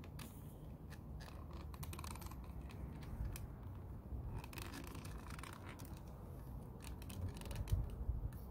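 Small irregular scrapes and clicks of hard plastic rubbing as a toy battle axe is pushed and twisted into an action figure's hand.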